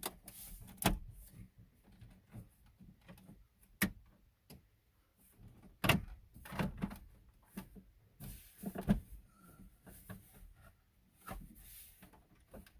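Plastic dash trim being handled and its clips pushed back into place: a series of irregular clicks and knocks, with rubbing and rustling between them.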